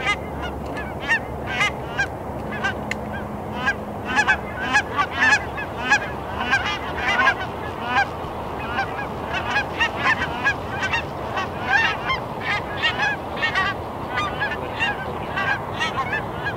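A flock of Canada geese honking in flight: many short, overlapping honks, several a second, continuing throughout.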